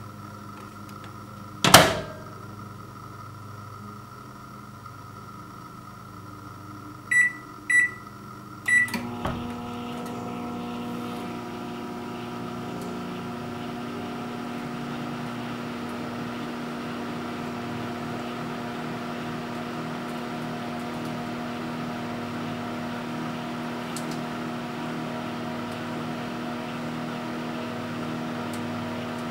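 Microwave oven door shut with a sharp clack, then three keypad beeps, and the oven starts up, running with a steady hum.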